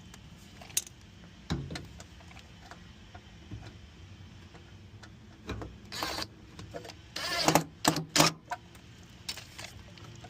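Hands working on wiring and plastic parts: scattered light clicks and rustles, with a cluster of louder scraping rustles about six to eight seconds in.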